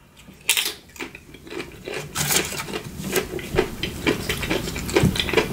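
Eating sounds: a utensil clicking and scraping irregularly against a food container, with chewing.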